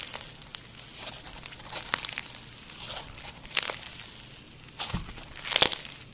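Slime being squished and kneaded by hand, with irregular crackles and sharp pops, the loudest pop near the end.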